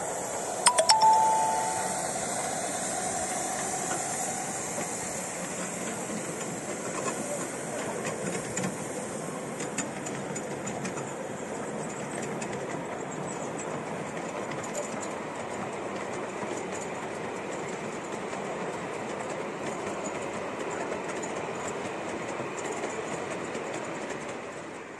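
Miniature steam locomotive giving a short whistle about a second in, with steam hissing. Then its train of coaches runs past, wheels clicking over the rail joints, and the sound fades away near the end.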